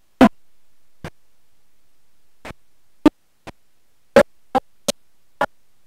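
About ten brief, sharp pops at irregular intervals over a faint steady hiss, with a short dead gap about three seconds in, like a broken-up recording.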